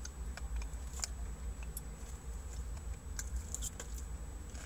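A person chewing food with the mouth closed, giving scattered small clicks and smacks at irregular moments, over a steady low hum.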